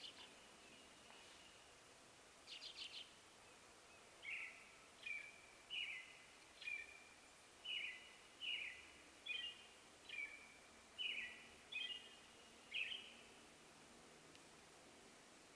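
American robin singing, faint: a brief chattering call, then a run of short whistled notes, each starting with a quick downward slur, about one and a half a second for some nine seconds.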